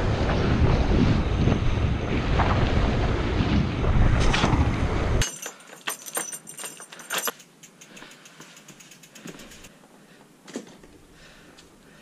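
Wind buffeting an action-camera microphone during a mountain bike ride, a loud, even rush that cuts off abruptly about five seconds in. A run of sharp clicks and light rattles follows, then a few faint ticks.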